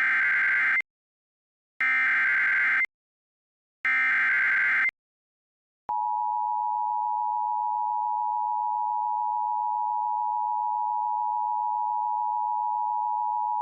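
Emergency Alert System signal for a severe thunderstorm warning: three one-second bursts of SAME digital header data about a second apart, then the EAS two-tone attention signal, a steady dual tone held for about eight seconds.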